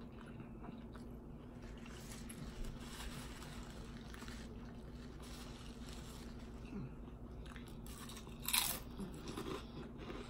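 Close-miked crunching and chewing of potato chips, with one louder crunch about eight and a half seconds in, over a faint steady hum.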